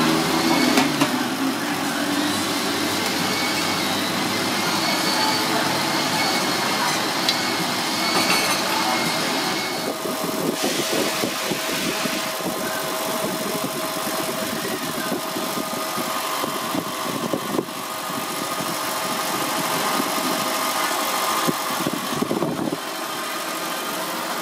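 Busy street traffic noise, with vehicle engines running and idling close by. The mix changes abruptly about ten seconds in and again near the end.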